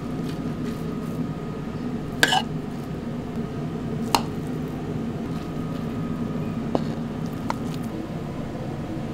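Kitchen clatter: four short, sharp knocks and clinks over a steady low hum. The first and loudest comes about two seconds in.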